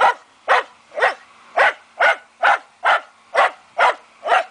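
Wire-haired fox terrier barking steadily at a wild boar, about two sharp barks a second, around ten in all.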